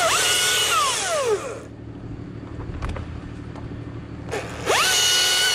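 Battery-powered chainsaw revved twice: each time the motor whine climbs quickly to a steady high pitch, holds for about a second, then winds down as the trigger is let go. A steady low engine hum runs underneath.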